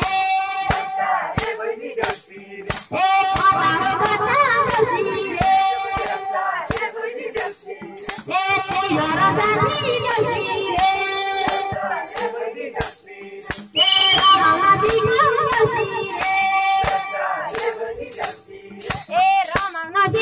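A Deusi folk song: a voice singing a melody over music, with a bright shaker-like percussion keeping a steady beat of about two strokes a second.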